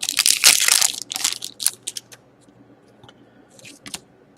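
A pack of trading cards being torn open, the wrapper crinkling for about a second, then fainter rustles and small clicks as the cards are slid out and handled.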